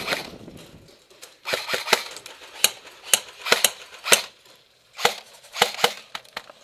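Airsoft guns firing: short bursts and single shots, each a sharp click, coming in several groups with brief pauses between them.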